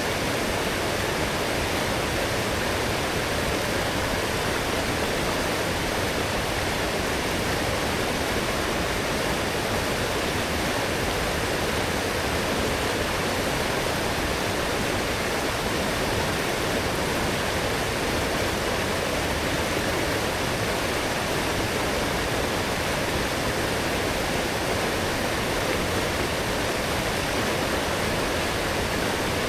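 Fast-flowing forest stream swollen after heavy rain, a steady, dense rush of water.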